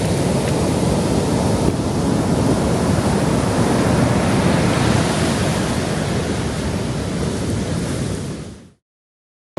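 Ocean surf from the typhoon swell washing onto the beach, a steady rush of noise with wind on the microphone, fading out about eight and a half seconds in.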